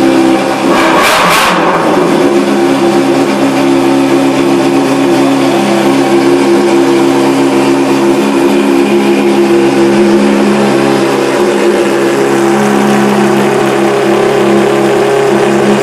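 Yamaha R6 sportbike's inline-four engine, revved once about a second in, then running at a steady speed.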